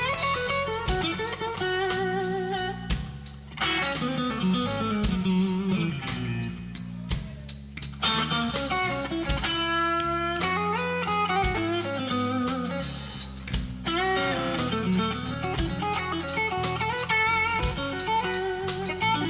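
Live blues band playing a slow blues, with an electric guitar leading through bent, wavering notes over drums and bass.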